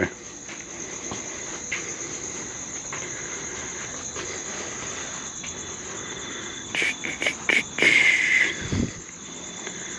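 Crickets chirring steadily in a continuous high-pitched trill. A few sharp clicks and a short rasping noise come about seven to eight and a half seconds in.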